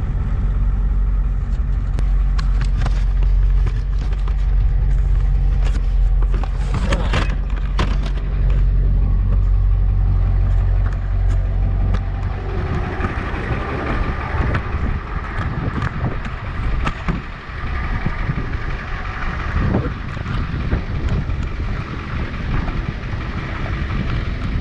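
Flatbed tow truck driving, heard from inside the cab: a steady low engine hum with road noise and a few sharp knocks. About halfway through, the hum drops away into rougher, noisier rumble as the truck changes speed.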